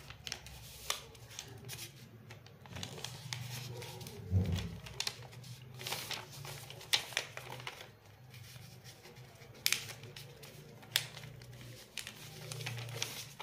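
Origami paper being folded and creased by hand: scattered paper crinkles and light taps, with a soft low thump about four seconds in.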